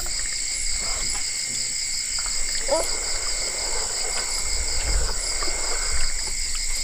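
Steady outdoor insect chorus: several high-pitched tones sounding at once, one of them pulsing rapidly, with a brief call about three seconds in.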